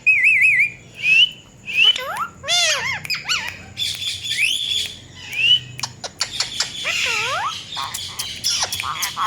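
Indian ringneck parakeet calling: a warbling whistle, short rising whistles and loud swooping squawks, mixed with sharp clicks.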